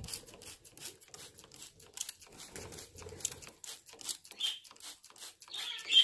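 Water sprayed again and again from a hand spray bottle over a cockatiel, quick short hissing squirts several times a second. Near the end there is a louder burst as the wet cockatiel spreads and flaps its wings.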